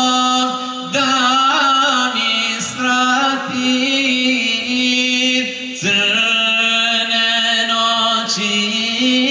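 A male vocal group chanting a religious hymn. A lead singer carries an ornamented, wavering melody while the others hold a steady low drone note, with brief breaks between phrases.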